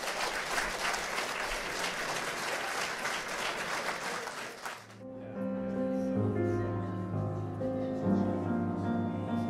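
Audience applauding. About five seconds in it cuts off suddenly and gives way to slow music with long held notes.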